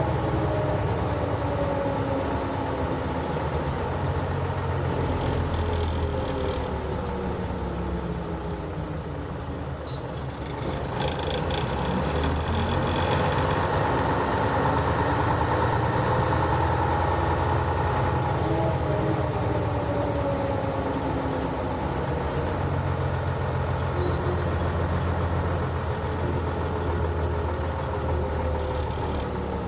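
Nissan Diesel 7E city bus's diesel engine and drivetrain heard from the cabin floor while under way, the engine pitch rising and falling. It goes quieter for a moment about ten seconds in, then builds again.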